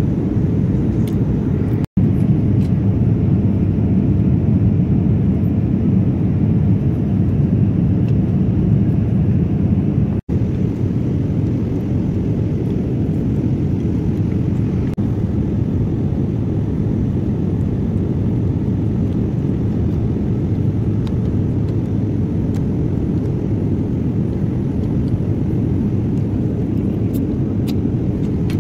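Jet airliner cabin noise in flight: a steady, loud, low rush of engines and airflow. It drops out for an instant twice, about two seconds and ten seconds in.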